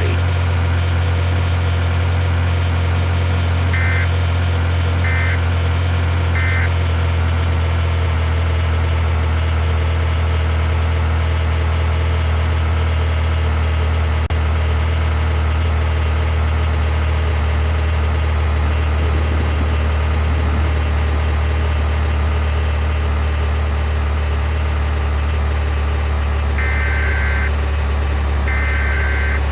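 Steady low drone of a car's engine and road noise, heard from inside the vehicle. Three short electronic beeps come about four to six seconds in, and three more near the end.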